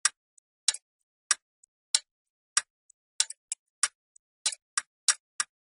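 A clock ticking in sharp, dry clicks. At first there is a tick about every two-thirds of a second; from about three seconds in the ticks come faster and unevenly, some doubled, with a few fainter small clicks in between.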